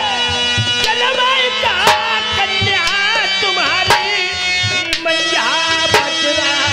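Dehati dhola folk music: a drum struck about once a second under a sliding, wavering melody line.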